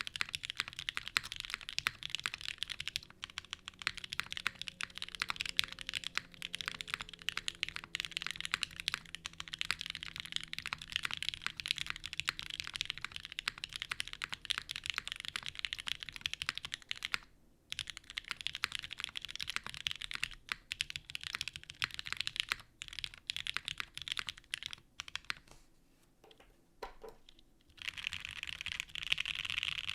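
Continuous typing on a gasket-mounted custom mechanical keyboard (Keycult No. 1 Rev 2) with Gateron Pink linear switches on an aluminium plate and GMK keycaps. It has a brief pause partway through and a lull near the end, then turns into rapid key spamming.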